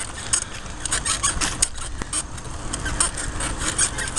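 Bicycle rolling over a rough, gravelly path, with irregular rattling and clicking from the bike over a steady low rumble.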